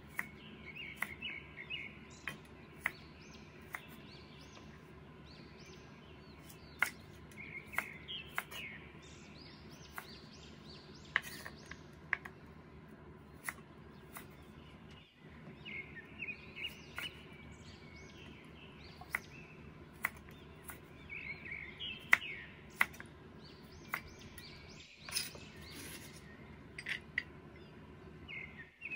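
Cleaver chopping through cucumber onto a wooden cutting board, sharp knocks at uneven intervals. Birds chirp in the background between the cuts.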